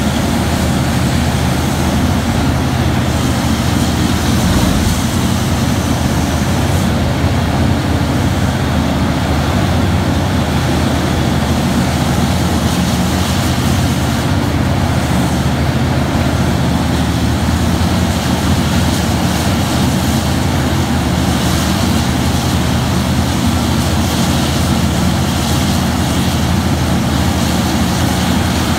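Terex RH170 front shovel mining excavator running steadily while it digs into the face: a deep, even engine drone that holds a constant level throughout.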